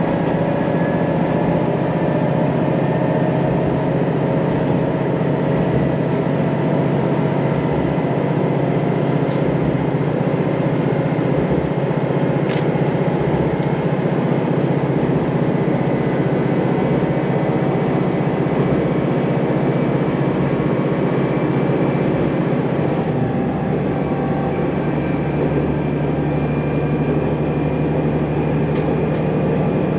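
Sanriku Railway diesel railcar running along the line, heard inside the passenger cabin as a steady engine drone with running noise. The engine note shifts about two-thirds of the way through, and a few faint sharp ticks come in the first half.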